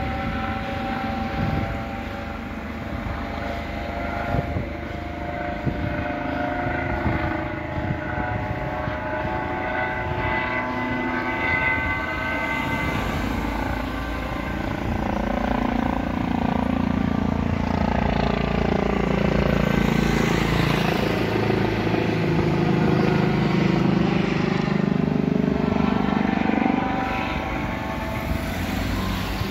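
Trauma helicopter flying past at a distance, its rotor and engine giving a steady drone with a whine of several held tones. In the second half a louder low rumble swells up and then fades near the end.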